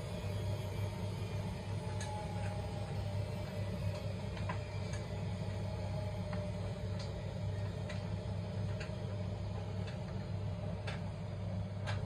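Zanussi IZ washing machine running in service mode, its drum turning with a steady low hum and a steady higher motor whine. Light ticks and clicks come at irregular intervals through it.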